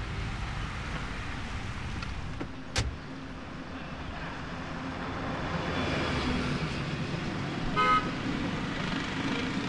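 Street traffic with cars driving past. There is a sharp knock about three seconds in, and a short vehicle horn toot near the end.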